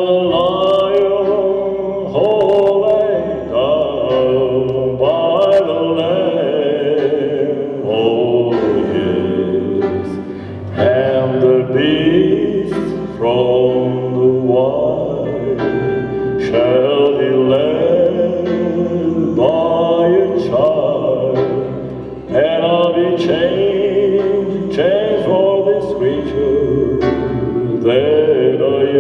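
A male singer singing a slow gospel song into a microphone in long, held phrases, over an accompaniment of sustained low notes.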